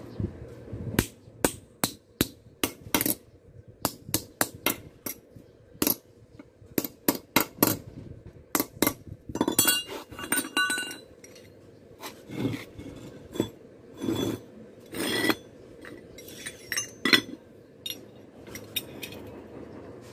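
Hand hammer striking a flat steel strip on a small bench anvil: an irregular run of sharp metallic clinks for about ten seconds, then fewer, scattered knocks and a few longer rasping sounds as the metal is worked.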